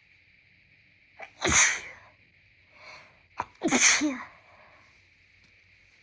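A person with a congested nose sneezing twice, about two seconds apart, each sneeze preceded by a quick catch of breath.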